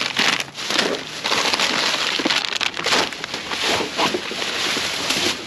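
Thin plastic trash bags and snack-packet wrappers rustling and crinkling as hands rummage through them, a continuous crackle broken by many sharp crinkles.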